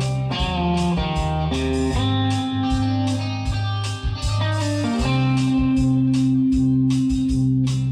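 Background music led by electric guitar, over a bass line and a steady drum beat.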